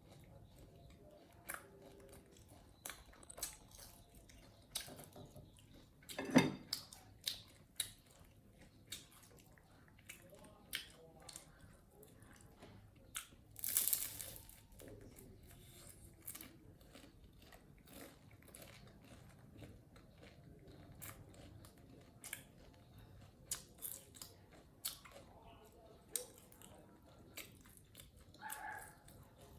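Monkeys chewing and crunching food: many small, crisp bites and crunches at an irregular pace, with a louder knock about six seconds in.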